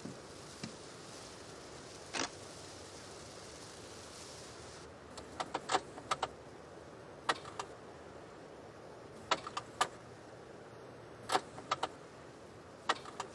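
Ignition key turned over and over in a Claas Dominator combine harvester's switch: sharp short clicks in small groups every couple of seconds, with no engine turning or catching, because the combine won't start.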